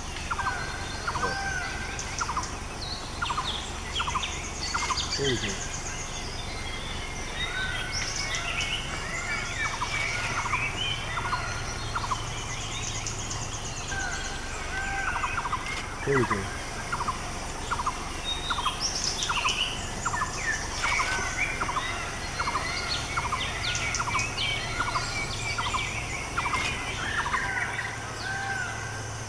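Forest birds calling: one bird repeats a short call note about twice a second in long runs, while other birds chirp and insects trill in snatches.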